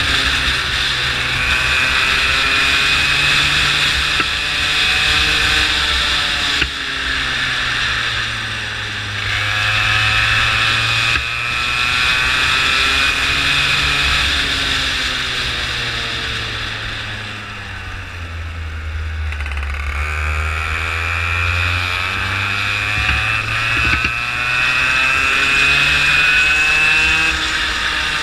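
Go-kart engine heard onboard, its pitch climbing steadily and then dropping sharply several times as the kart accelerates and lifts through the corners; it falls lowest and quieter for a couple of seconds past the middle before climbing again.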